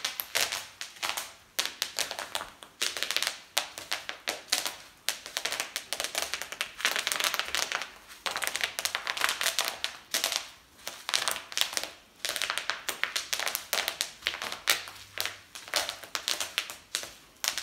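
Bubble wrap being stepped on in socks: irregular runs of sharp pops, each run followed by a short pause.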